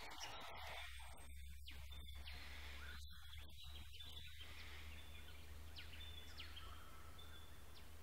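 Quiet bushland ambience: a steady high hiss with a thin held high tone over a low rumble, and a few faint short high chirps from about five seconds in.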